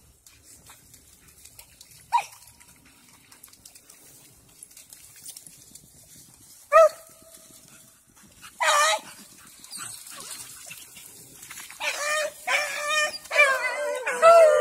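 Dogs barking now and then: single barks a few seconds apart, then a quicker run of barks near the end.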